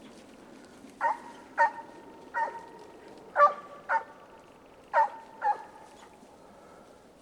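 A scent hound baying on a hare's trail: seven short, clear barks, mostly in quick pairs, about a second apart.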